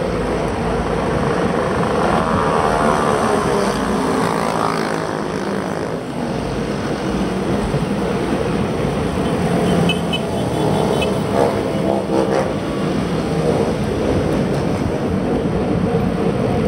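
Steady wind and road noise on a bike-mounted Shimano CM1000 action camera riding along a city avenue, with motor vehicles passing and their engines rising and falling in pitch a few times.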